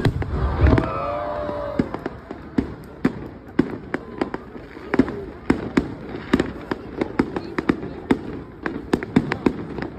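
Fireworks display: a deep boom as a large shell bursts at the start, then an uneven run of sharp bangs and crackles, several a second.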